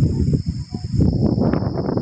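Strong gusty wind buffeting the microphone in loud, uneven low rumbles that swell and dip.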